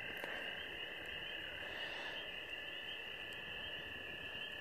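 A chorus of frogs calling: a steady, high trilling that goes on without a break.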